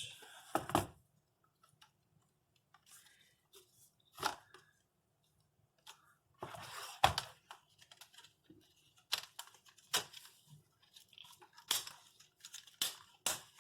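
Plastic laptop screen bezel being pried off by hand, its retaining clips popping loose with about ten sharp, irregular clicks and snaps amid plastic creaking and scraping. The loudest snap comes about seven seconds in.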